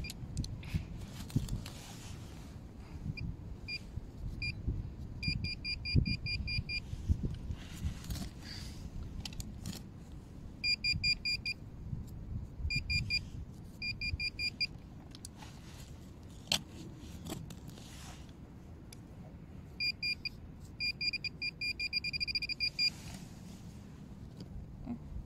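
Handheld metal-detecting pinpointer beeping in groups of quick, high-pitched pulses as it is worked through wood-chip mulch. The beeps run together into an almost continuous tone near the end, the sign that its tip is right on the buried metal. Between the beeps there is low rustling and scraping of the mulch being dug by hand.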